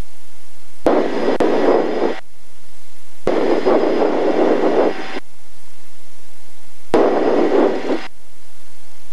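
Cockpit noise of an Eclipse 500 on its takeoff roll, its twin jet engines and the rushing air heard through a headset intercom that cuts in and out. The noise comes in three abrupt blocks of one to two seconds, each opening with a click, with near-silent gaps between them.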